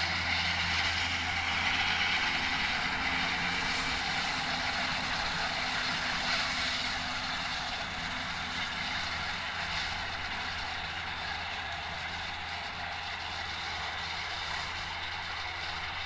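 McCormick tractor engine running under load with the steady whir of its front and rear disc mower combination cutting grass, slowly fading as it moves away.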